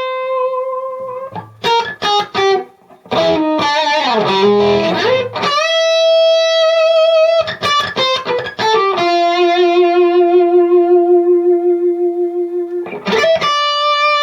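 Electric guitar through a KONG 6810HW amp head and a Marshall 4x12 cabinet with Celestion Vintage 30 speakers, playing singing, sustained lead notes. Three long held notes shake with vibrato, broken up by quick runs and bends, with a bend down near the end.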